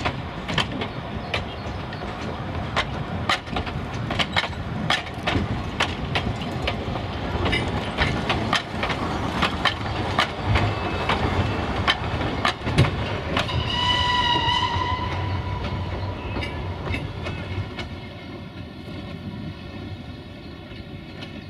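Narrow-gauge carriages rolling past with their wheels clicking sharply over the rail joints. About thirteen seconds in, the steam locomotive 764.421 at the head of the train sounds its whistle, one steady call about a second and a half long. Near the end the train grows quieter as it moves away.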